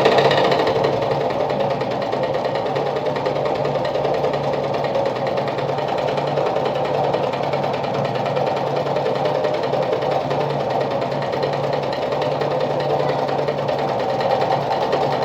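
Sartina e-100 sewing machine running steadily at an even speed while sewing a decorative pattern stitch.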